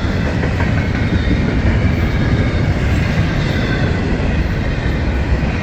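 Freight train of double-stack container cars rolling past as it slows, a steady rumble and rattle of wheels on rail.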